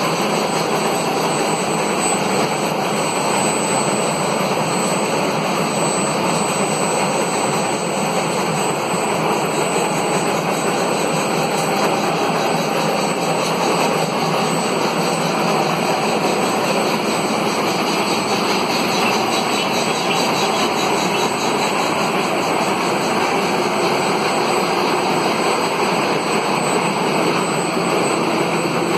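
Gear hobbing machine running, a steady mechanical din with no change in pace or breaks, and a faint thin high whine over it.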